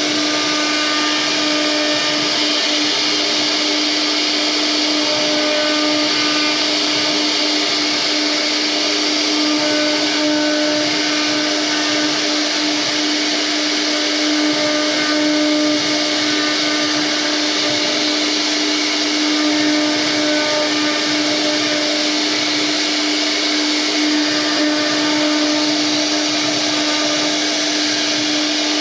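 CNC router spindle running steadily, with a constant whine and a hiss over it.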